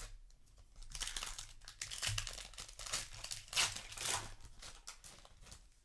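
A foil Magic: The Gathering booster pack wrapper being crinkled and torn open, in irregular rustling bursts.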